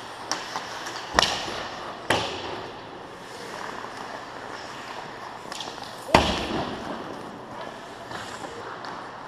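Ice hockey play around the goal: skates scraping the ice over arena noise, broken by three sharp knocks of stick and puck, the loudest about six seconds in.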